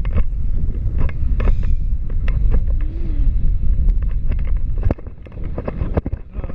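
Wind rumbling and buffeting the microphone of a selfie-stick camera on a paraglider in flight, with scattered sharp pops; the rumble eases briefly about five seconds in.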